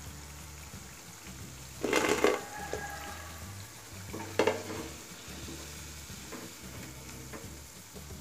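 Cauliflower pakoda deep-frying in hot oil, a steady sizzle, with a metal slotted skimmer knocking against the pan twice: once about two seconds in and again a little after four seconds, as the fried pieces are lifted out.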